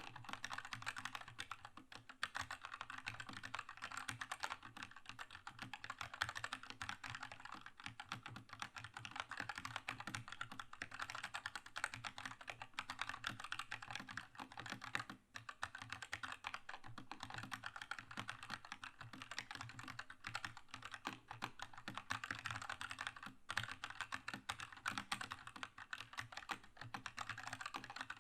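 Keychron K2 mechanical keyboard with red linear switches being typed on continuously, a fast run of key clacks with a brief pause about halfway through.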